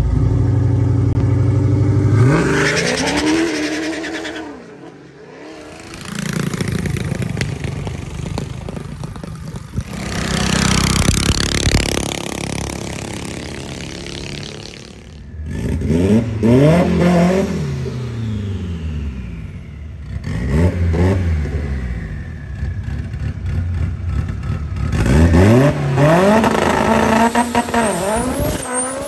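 Drag cars' engines in a series of short cuts: an engine running steadily and then revving up as a car launches, a car passing at speed, then engines revving up and down several times, the last of them a turbocharged Honda Civic on the launch pad.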